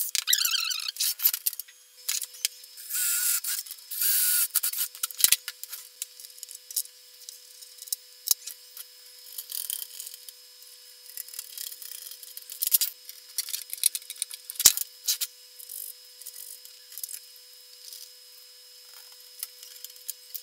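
Cordless drill boring holes in a small circuit board in three short bursts in the first few seconds, the first winding down in pitch as it stops. Then a string of light clicks, taps and scraping as the board is handled and set onto bolts in a sheet-metal chassis.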